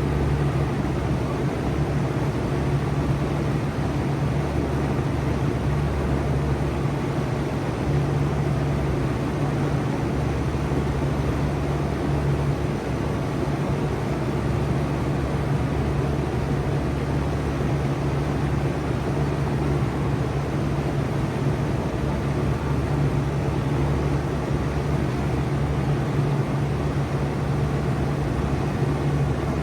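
2024 Bard 4-ton wall-hung heat pump running steadily in cooling mode: a constant low hum from the compressor over the even rush of the condenser fan's airflow.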